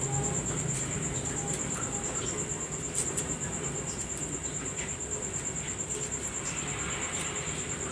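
Steady, rapidly pulsing high-pitched insect trill, with a few light clicks and scratches from kencur (aromatic ginger) root being peeled.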